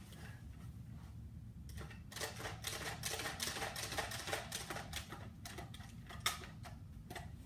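Quick small plastic clicks and rattles from a Nerf Dart Tag revolver as its trigger is worked without firing, because the blaster has not been cocked. One sharper click comes near the end.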